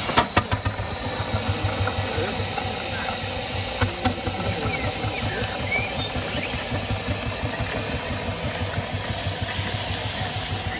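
Miniature live-steam traction engine chuffing as it drives slowly, its exhaust beats in a steady rhythm over a hiss of steam. A few sharp metallic knocks near the start and two more about four seconds in.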